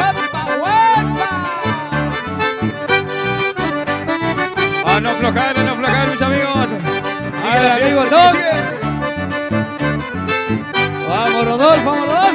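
Accordion music playing over a steady, repeating low bass accompaniment.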